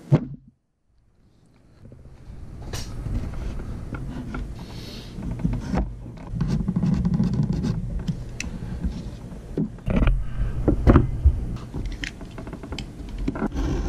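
Leather and hand tools being handled on a cloth-covered workbench: rustling and scraping with scattered taps and knocks. There is a sharp knock right at the start, then a second or so of silence.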